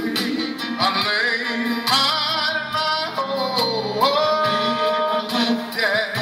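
Gospel song with a solo voice singing a wordless melismatic run, sliding and wavering in pitch over sustained accompaniment.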